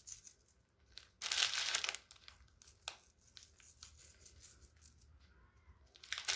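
Nigella seeds being pinched and sprinkled by hand over a börek, with light scattered ticks and a crinkling rustle about a second in and again near the end.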